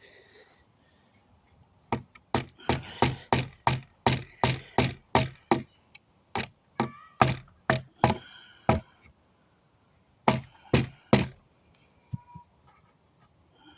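Hammer striking nails in a wooden pallet plank, knocking them out: runs of sharp blows at about two to three a second, with two short pauses, the last run of three blows ending about three-quarters of the way through.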